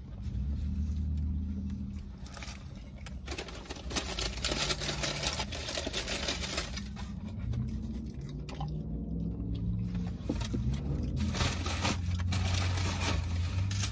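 Rustling and crinkling of fast-food paper wrappers and eating noises inside a car, in long crackly stretches over a low steady hum.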